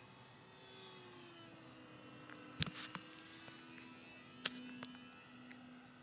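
Faint, steady whine of a small R/C plane's electric motor and propeller passing overhead, its pitch sliding slowly. Two sharp clicks stand out, one a little before the middle and one about three-quarters in.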